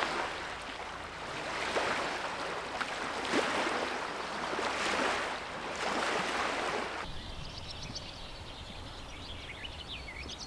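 Rushing water, a stream or small waves on a shore, swelling and fading about every second and a half. About seven seconds in it gives way to quieter outdoor background with small birds chirping.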